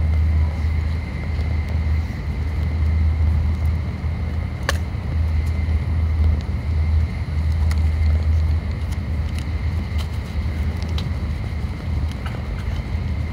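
Shinkansen passenger-car interior running noise at speed: a steady low rumble under a faint, steady high tone, with a few faint clicks.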